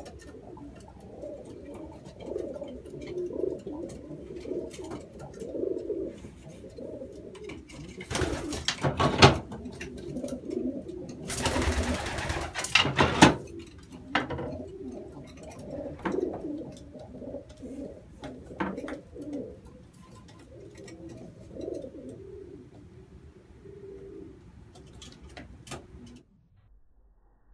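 Racing pigeon hens cooing steadily in a small wooden loft. Twice, about 8 and 12 seconds in, loud flurries of wing-flapping break over the cooing, with a few light clicks between. The sound cuts off shortly before the end.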